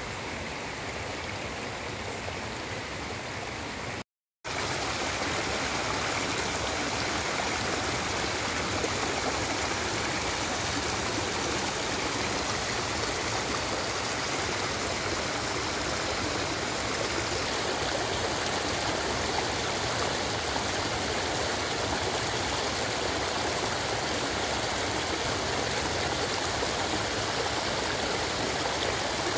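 Small hillside stream, swollen with runoff after days of rain, rushing and gurgling over rocks and branches. A brief gap about four seconds in, after which the water is louder and closer.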